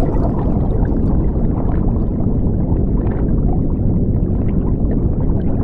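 Steady low rumbling handling noise with faint scattered clicks: packaging being worked out of a cardboard action-figure box close to the microphone.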